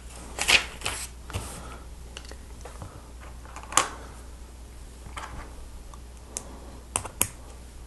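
Plastic Lego Technic pieces clicking and clacking as they are handled and snapped together, a few scattered sharp clicks with pauses between, two close together near the end.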